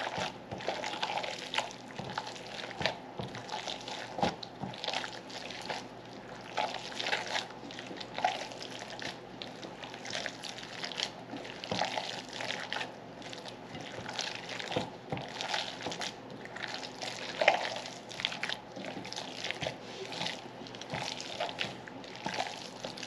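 Gloved hands squeezing and kneading a wet ground-beef meatloaf mixture with milk-soaked bread in a glass bowl: an irregular, continuous run of wet squelches.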